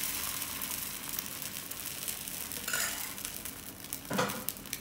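Dosa batter sizzling on a hot, ghee-greased griddle as a ladle spreads it, a steady crackling hiss, with a short clatter about four seconds in.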